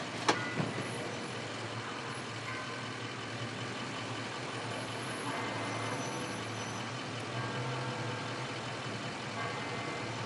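Large armoured limousine rolling slowly to a stop, its engine and tyres a low steady rumble under steady outdoor background noise. A sharp click sounds about a third of a second in, with a smaller one just after.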